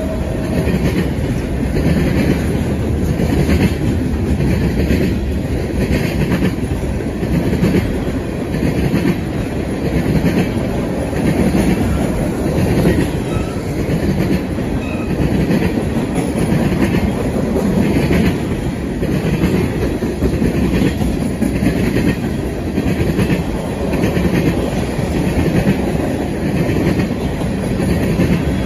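Freight train of tank cars rolling past at close range: a steady rumble of wheels on rail with a repeating clickety-clack as the wheel sets cross the rail joints.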